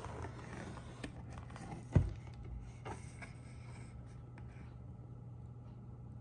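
Cardboard pizza box being handled and opened, with light scraping and one sharp thump about two seconds in, likely the lid knocking down, over a steady low hum.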